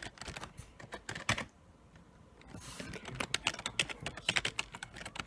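Typing on a computer keyboard: quick runs of key clicks, with a pause of about a second after the first second and a half, then a busier burst of keystrokes.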